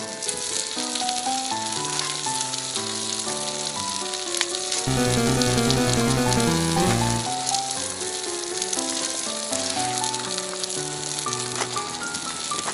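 Chateaubriand beef steak sizzling and crackling as it sears, under background music with a melody of stepped notes; the music swells louder for a couple of seconds near the middle.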